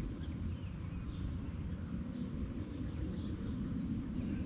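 Outdoor pond-side ambience: a steady low rumble with a few faint, short bird chirps.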